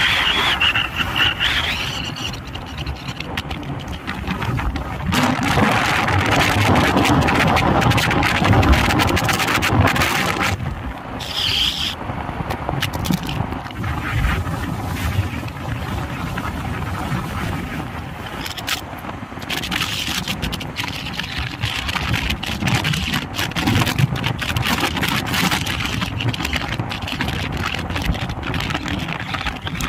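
Vehicle travelling on the road: steady engine and road noise, with wind buffeting the microphone.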